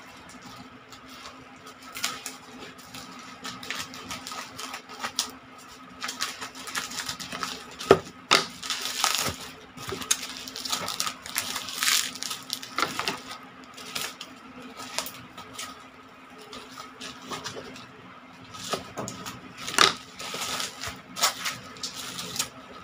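Plastic shipping pouch and bubble wrap crinkling and crackling in irregular bursts as a phone box is cut free with scissors and unwrapped.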